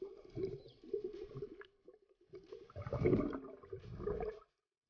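Muffled underwater water noise: irregular gurgling and sloshing surges heard through a submerged camera, the strongest about three seconds in.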